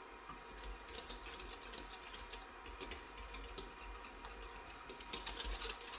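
Wire whisk rattling and scraping against a stainless steel saucepan as pastry cream is whisked while it cooks, a fast run of light ticks that gets busier and louder near the end.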